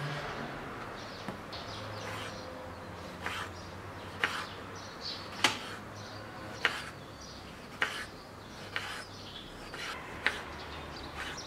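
Kitchen knife slicing tomatoes on a wooden cutting board: the blade taps sharply on the board about once a second as each slice is cut through.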